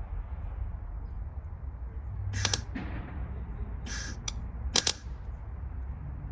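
Arc welder striking short tack welds on small steel parts: four brief bursts of crackling arc, the first about two seconds in and three close together near the middle, over a steady low hum.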